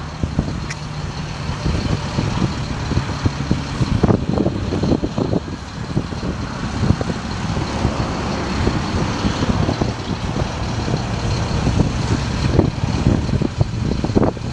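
Freightliner FL60 bucket truck's engine running steadily while it drives the hydraulics that lower the Altec AO300-P boom to its stowed position, with a faint steady high whine over it.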